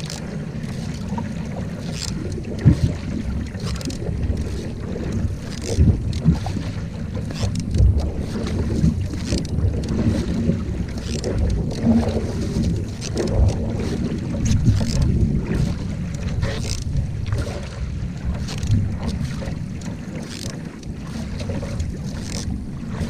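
Wind buffeting the microphone and water rushing under a canoe's hull, with the splash of single-blade paddle strokes about once a second.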